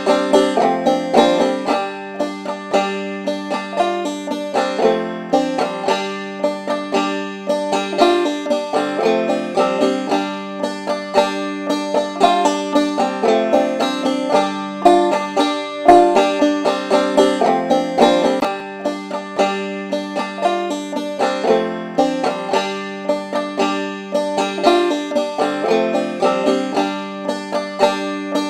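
Background music: a banjo picking a quick run of notes over a steady rhythm.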